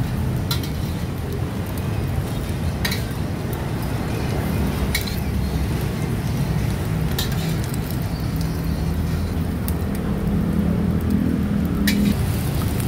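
Fried rice cooking in a wok, a metal spatula striking the pan about five times, over a steady low rumble.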